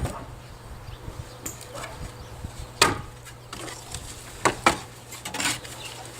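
Wooden fence boards knocking against each other as they are handled and sorted from a pile. There is one sharp knock about three seconds in, then a few more near the end.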